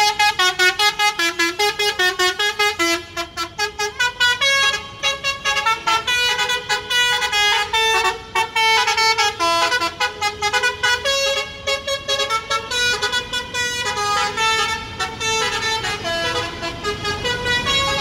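A bus's 'telolet basuri' multi-tone air horn playing a fast melody of short, stepping notes without a break.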